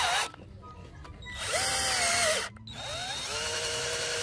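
Cordless drill driving wood screws through a steel angle bracket into a wooden frame, in three short runs separated by brief pauses. Each run is a motor whine that rises in pitch as it speeds up and drops as it slows to a stop; the middle run is the loudest.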